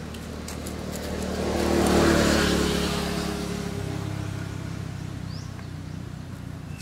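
A motor vehicle driving past, its engine and road noise swelling to a peak about two seconds in, then fading away.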